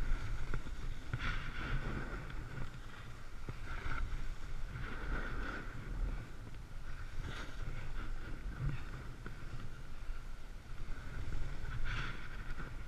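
Snowboard sliding and carving over snow, its edge hissing and scraping in swells with each turn. Wind rumble runs on the helmet-camera microphone beneath it.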